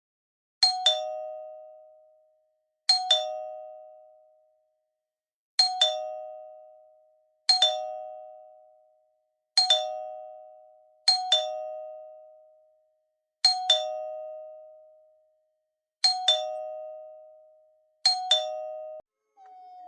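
Two-note ding-dong doorbell chime, a higher note then a lower one, rung nine times at uneven gaps of about two seconds, each pair ringing out and fading; the last is cut off short.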